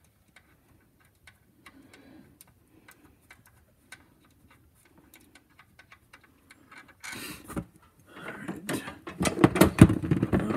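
Hand ratchet clicking in short runs while backing out a 10 mm alternator mounting bolt. About seven seconds in, the clicking turns louder and faster, with rattling, and is loudest near the end.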